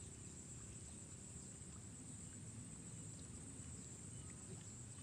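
Faint outdoor ambience: a steady high-pitched insect chorus over a low, even rumble, with a few light ticks.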